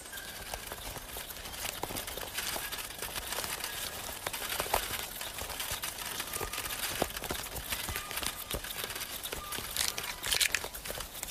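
Army ants swarming over and cutting up prey: a dense rustling crackle of countless tiny clicks and scratches, with a slightly brighter burst near the end.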